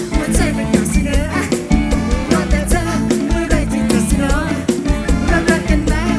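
Live mor lam band music with a fast, steady drum-kit beat and a wavering melodic lead over it.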